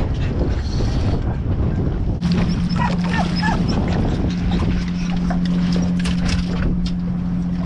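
An excited beagle whining and yelping on a boat deck as a yellowtail snapper is brought aboard in a landing net. A few short sliding whines come about three seconds in. Under it runs a steady low hum that starts about two seconds in, and later there are scattered knocks.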